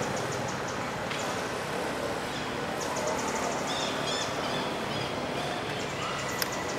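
Steady outdoor background noise with several short, rapid, high-pitched chirping trills, and a single sharp click near the end.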